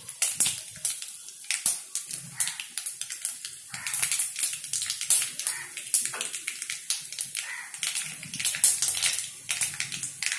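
Mustard seeds, cumin seeds and a broken dried red chilli crackling in hot mustard oil in a kadai, the spluttering of a tadka: many irregular sharp pops, several a second.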